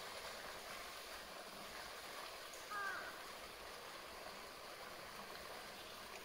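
Steady hiss of water running from a pipe into a pool. About three seconds in, one short call falls in pitch.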